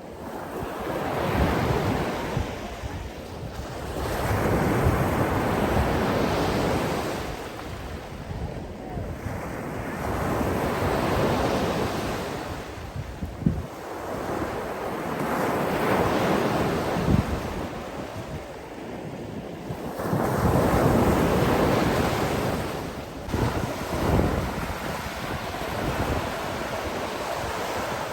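Sea waves breaking and washing back in slow surges. Five or six swells build and fade over the stretch.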